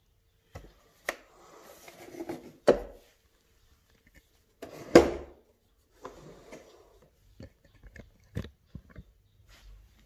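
Handling noises from a switched-off AEG Öko Vampyr canister vacuum cleaner: its plastic body knocking, clicking and rustling as it is moved about and set on its wheels on carpet. There are two louder knocks, about a quarter and halfway through.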